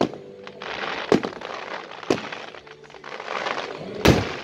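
Aerial firework shells bursting: four sharp bangs, the loudest near the end, with a dense crackle between them.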